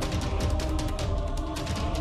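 Background music with a fast, steady percussive beat over sustained tones and heavy bass.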